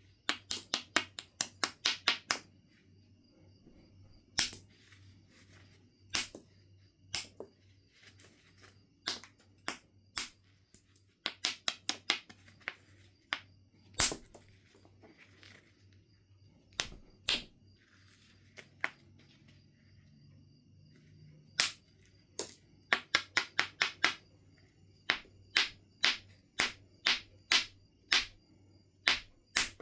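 Knapping tools striking and clicking against a piece of Knife River Flint: sharp, ringing clicks, some single, others in quick runs of several a second.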